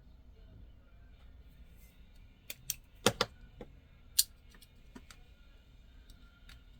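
A handful of sharp clicks and taps of small hard parts being handled. They fall over about two seconds, the loudest a close pair about three seconds in and another a second later, with a few faint ticks after.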